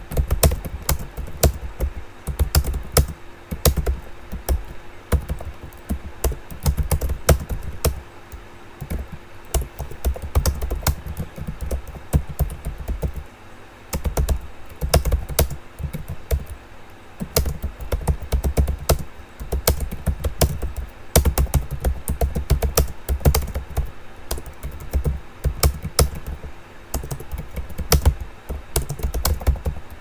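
Computer keyboard being typed on at an ordinary copy-typing pace: quick runs of key clicks with dull low thuds, broken by short pauses every few seconds.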